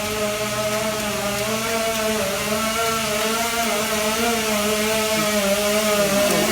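Steady hum of motor-driven milking-parlour machinery at the exit of a rotary parlour, with a slight wavering in pitch.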